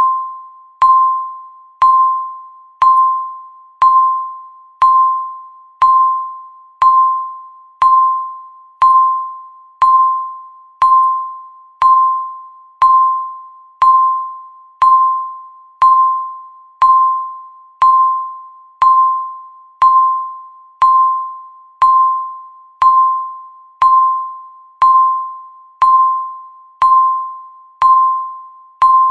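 Countdown timer beep, once every second: a short pure electronic tone that starts with a click and fades away, repeating evenly through the count.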